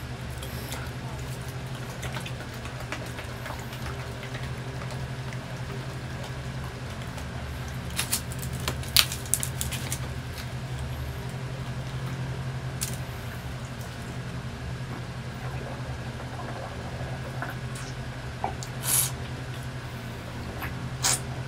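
A juice carton being handled and opened, with a few sharp clicks and taps from its plastic screw cap, then drinking from it near the end. A steady low hum runs underneath.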